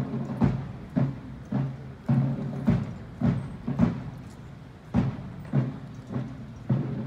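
Military band drums beating a steady, slow marching cadence, one deep, ringing stroke a little more than every half second.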